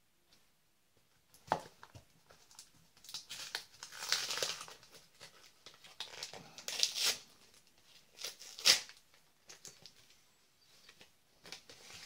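Gift packaging being torn open and crumpled by hand, in irregular rustling bursts with a sharp crackle about three-quarters of the way through.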